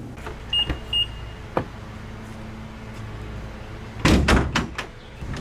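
A few sharp clicks and two short high beeps, then a quick run of loud knocks and rattles about four seconds in.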